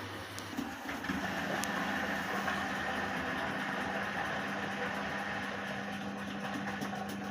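Hotpoint inverter-motor washing machine running a wash: a steady motor hum with a band of rushing noise, which steps up to a higher, louder hum about a second in.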